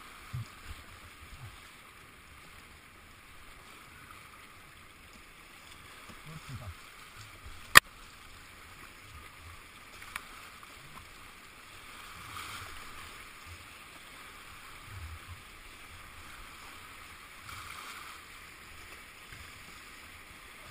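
Fast, swollen river water rushing steadily around a kayak, the river high with a dam release. There are a few low knocks near the start and again about six seconds in, and one sharp click, the loudest sound, about eight seconds in.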